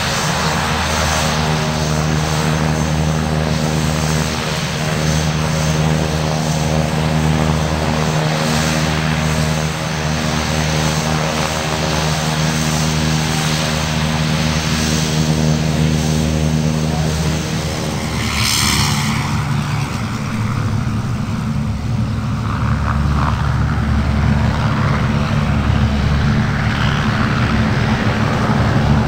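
Twin turboprop engines of a Beechcraft King Air running at ground idle while it taxis, a steady hum of several held tones. About two-thirds of the way through, the sound switches abruptly to a single-engine Cessna Caravan turboprop taxiing, a rougher and noisier running.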